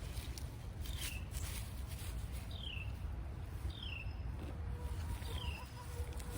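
A bird calling: a short, high, falling note repeated about every second and a half, over a low outdoor rumble with a few faint clicks.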